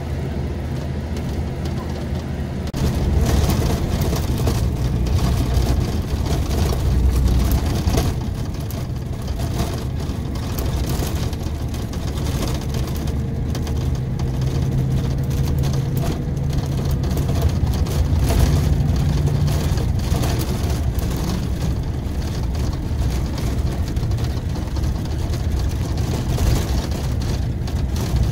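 Scania K400 coach's diesel engine running with a deep, steady hum. It grows louder about three seconds in, then holds steady.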